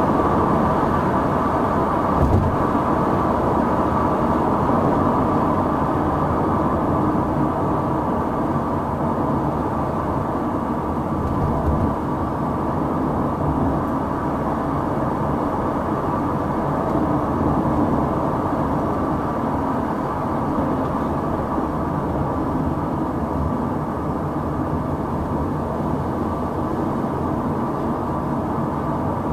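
Steady engine and road noise inside the cabin of a Buick Regal with a supercharged 3.8-litre V6, cruising at a constant pace. One brief thump about two seconds in.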